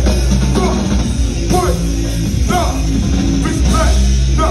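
Loud live music from a band with drum kit, keyboards and vocals, heard from inside the crowd.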